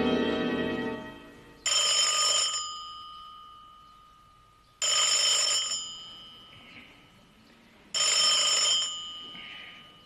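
Telephone bell ringing three times, each ring about a second long and about three seconds apart, with the bell tone dying away after each. Background music fades out just before the first ring.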